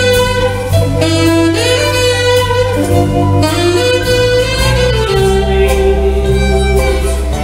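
A live band playing, with a saxophone carrying the melody over electric guitars, bass guitar and drums.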